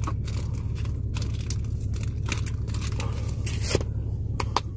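Crinkling and crackling handling noises, close to the microphone, over the steady low hum of an 18-wheeler diesel truck in the cab.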